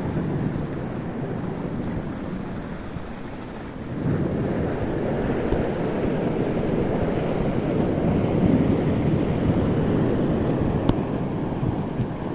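Storm surf from a rough sea breaking on the shore, mixed with strong wind buffeting the microphone. It dips slightly and then swells again about four seconds in.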